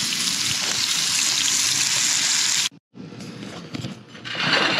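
Bacon-wrapped dove and jalapeño poppers sizzling in a hot pan over an open fire, a steady hiss. It cuts off abruptly a little over halfway through, then comes back weaker and swells again near the end.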